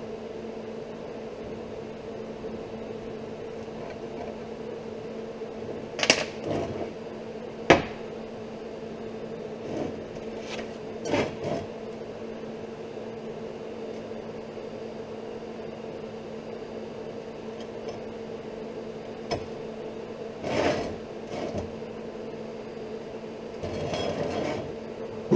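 Steel angle and marking-out tools handled on a steel workbench: a few short, sharp metal clinks and taps, the two loudest about six and eight seconds in, over a steady mechanical hum.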